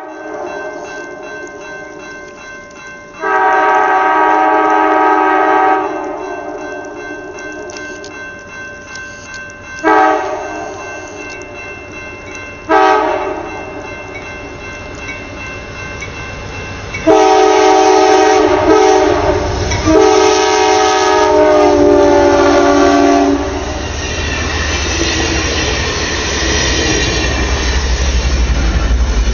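Amtrak locomotive's multi-chime air horn sounding a long blast, two short blasts and a final long blast whose pitch drops as the train passes. The train then rolls by with steady wheel noise, clickety-clack over the rail joints and a low rumble.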